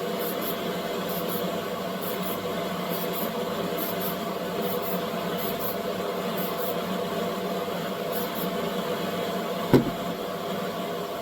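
Steady hum of a small electric motor, with a short knock that has a quickly falling tone about ten seconds in.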